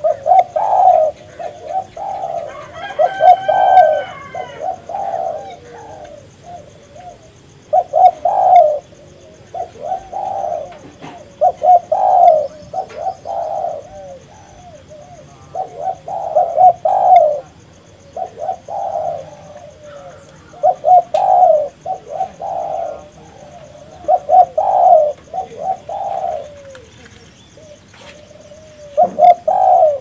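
Spotted dove cooing in repeated phrases, each a short run of coos, with pauses of a second or two between phrases.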